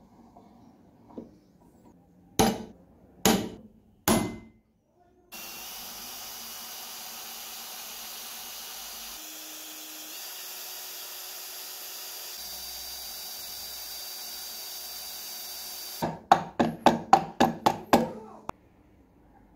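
Hammer blows on the old metal padlock being knocked apart: three separate strikes, then a steady hiss lasting about ten seconds, then a quick run of about eight blows.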